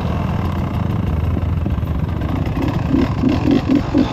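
Enduro dirt bike engine running at low speed off-road, with a quick run of rhythmic low pulses over the last second and a half.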